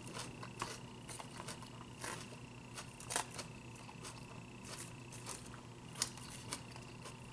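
A plastic fork poking and stirring through lettuce salad in a clear plastic takeout container, making scattered small clicks, taps and leaf crinkles, the strongest about three seconds in and again near six seconds, over a faint steady hum.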